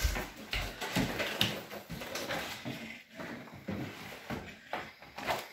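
Footsteps and small knocks, then a wooden dresser drawer being pulled open and a book put into it.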